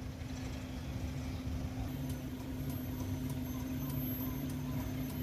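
Daihatsu Xenia Xi 1.3's four-cylinder engine idling with a steady, even low hum.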